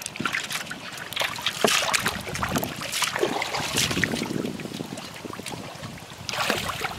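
Water splashing and sloshing in irregular bursts as hands move through shallow water and a metal bowl of live fish, easing off briefly and picking up again near the end.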